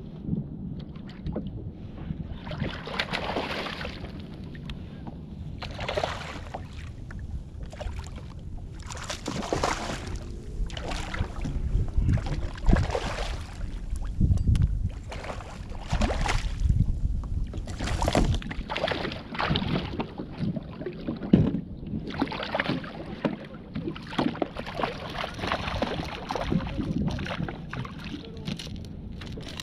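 Water splashing and sloshing against a kayak in uneven surges every couple of seconds as a hooked bluefish is played to the boat, with wind buffeting the microphone.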